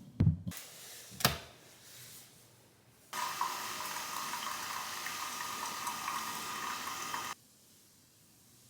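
Two sharp knocks, then a steady rush of running water that starts and stops abruptly after about four seconds.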